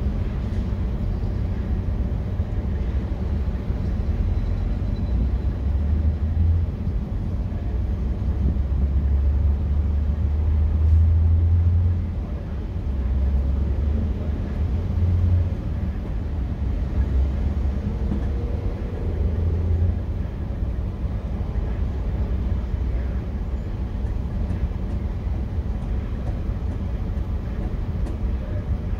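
Low steady rumble of vehicle engines and traffic, heard from inside a parked vehicle, swelling a few times in the middle.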